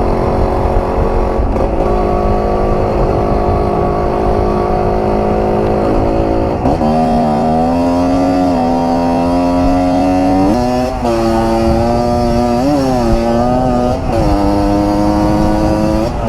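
Kawasaki KMX 125 two-stroke single-cylinder dirt bike engine running. It holds a steady pitch at first, then from about seven seconds in the pitch rises and steps up and down several times with changes of throttle.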